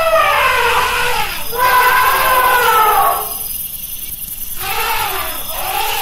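Elephant trumpeting: three drawn-out calls that rise and fall in pitch, with a pause of about a second and a half before the last one.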